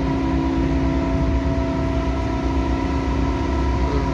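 Steady drone of a large ship's engines and machinery under way, a constant hum made of several steady tones over a low rumble.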